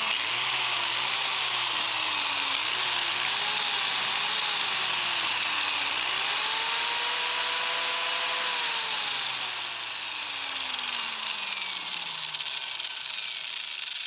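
Ryobi corded angle grinder running free with no load, fed from a UPS inverter running on battery. Its motor whine wavers in pitch, rises about six seconds in, holds briefly, then slides steadily lower over the next few seconds.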